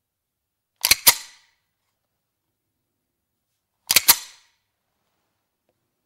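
A CZ 75 semi-automatic pistol's action clacking twice, about three seconds apart. Each time there are two sharp metallic clicks in quick succession with a brief ring-out.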